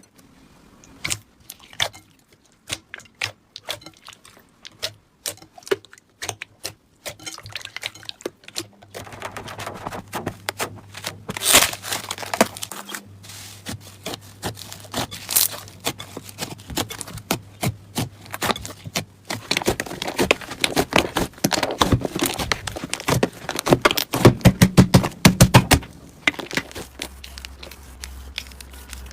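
Slime being squeezed and poked by hand: a run of small sharp clicks and crackles, sparse at first, then busier and louder from about nine seconds in, thickest a few seconds before the end.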